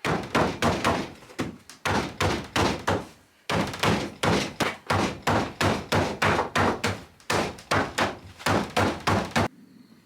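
Rapid dull thunks of hammering on aluminium sheet, about three to four blows a second in three runs with two short pauses, stopping shortly before the end.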